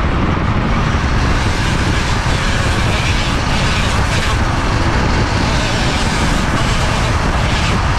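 Flexible-shaft rotary tool with a sanding drum grinding a cork decoy body, the grit scratching louder in short passes, over a loud steady rushing noise.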